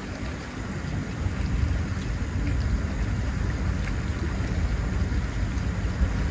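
Wind buffeting the microphone: a steady, uneven low rushing noise with no distinct events.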